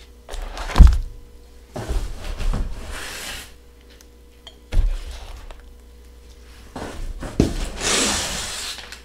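Foam-wrapped glass bottles being handled and laid down on a table: a few dull thuds, the first and loudest about a second in, with rustling and scuffing of the foam sleeves and packing tape between them.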